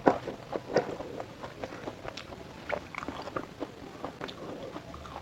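Close-up mouth sounds of a person eating fried food: biting and chewing in quick, irregular clicks and smacks, with a louder bite right at the start and another just under a second in.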